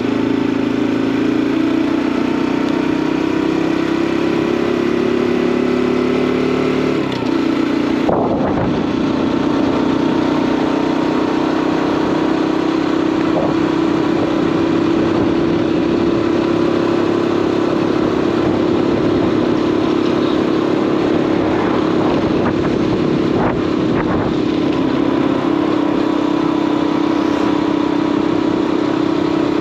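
Small motorbike engine running at a steady cruising pace, with rushing wind and road noise. About seven seconds in, the engine note drops and briefly breaks, then settles into a steady note.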